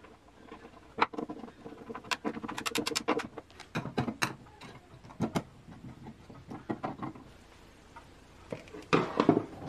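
Clicks, taps and light rattles of hands working a metal electrical switch box, its power cord and a screwdriver, with a quick run of clicks about two and a half seconds in and louder handling near the end.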